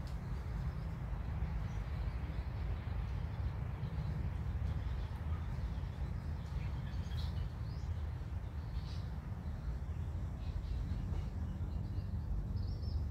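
Steady low outdoor background noise, with a few faint, short high chirps around the middle and again near the end.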